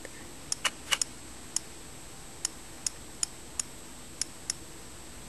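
Key clicks of an iPod touch on-screen keyboard as letters are tapped in: about eleven short, sharp clicks at uneven intervals, the first few close together about half a second to a second in.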